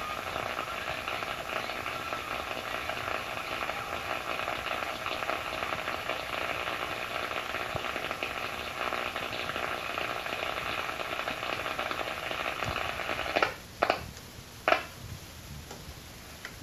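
Heathkit SB-310 shortwave receiver's speaker giving out steady static hiss and crackle with faint whistles while the dial is tuned across the 40-metre amateur band and no clear Morse or sideband signal is found. Near the end three sharp clicks sound and the noise then drops to a lower hiss.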